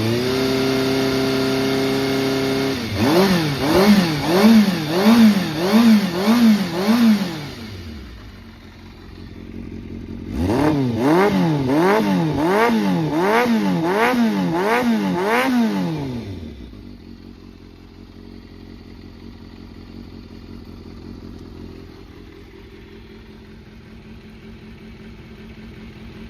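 Kawasaki ZRX400's four-cylinder engine is held at raised revs, then blipped six times in quick succession. It settles for a moment, is blipped about seven more times, and then drops to a steady idle. The seller describes the engine as running well, with no abnormal noise.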